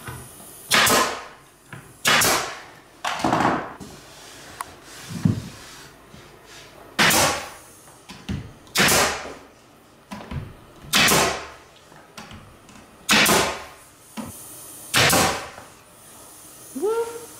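Pneumatic nail gun firing nails into wooden window trim: about nine sharp shots, roughly two seconds apart, each trailing off briefly.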